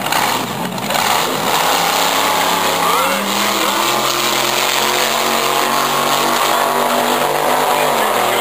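Drag racing car's engine at wide-open throttle as it launches off the starting line and pulls away down the strip. The noise is loud throughout, and the engine note climbs about three seconds in.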